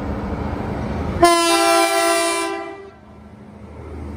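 An approaching XPT diesel passenger train sounds its horn: one blast of about a second and a half, several notes sounding together as a chord, starting about a second in over a low steady rumble.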